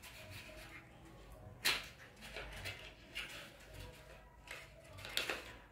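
A bamboo toothbrush's brown paper box being handled and pulled open by hand: soft rustling with a few short sharp scrapes, the loudest about one and a half seconds in and another cluster near the end.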